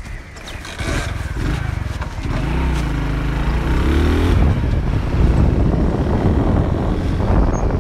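Motorcycle engine approaching and pulling up, its note rising and falling around the middle, then running steadily at idle.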